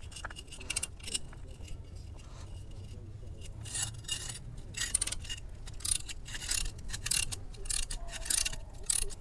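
Datsun redi-GO's factory car jack being raised with a ratcheting jack wrench: repeated metallic scraping and rasping strokes, quieter at first and coming about one or two a second from about three and a half seconds in.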